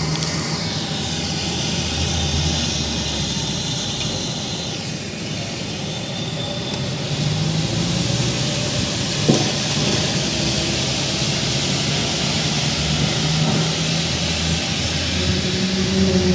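A low, steady droning hum of held tones over a wash of hiss, of the kind reported as a 'strange sound in the sky', with a single short click about nine seconds in.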